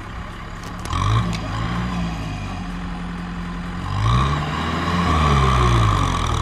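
Kubota M6040SU tractor's diesel engine revving as it strains to pull a loaded rice-sack trailer out of deep mud. It revs up about a second in, eases back, then revs harder about four seconds in and holds high near the end.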